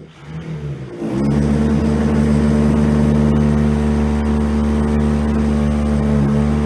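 Electric power tool motor coming up to speed about a second in, then running steadily at one pitch with a loud hum.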